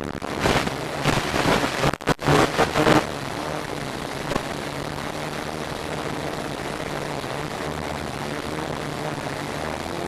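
F450 quadcopter's motors and propellers whirring in flight. The first three seconds surge and buffet loudly, with a brief dropout about two seconds in, and then the sound settles into a steady drone.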